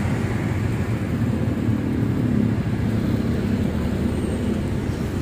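Steady road and engine noise heard from inside a moving car, an even rumble with no sudden events.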